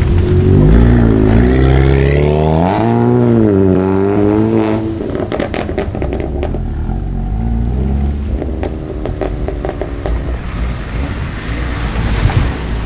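A car engine revving as the car pulls away, its note rising and falling over the first five seconds and then settling lower. A quick run of sharp cracks about five seconds in, and another vehicle's sound swelling near the end.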